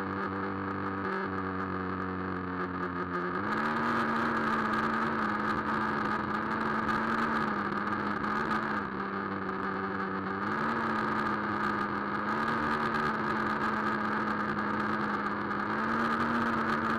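Traxxas Nitro Rustler's two-stroke nitro engine running as the RC truck drives, a steady note that steps up a little in pitch a few seconds in and lifts slightly several more times.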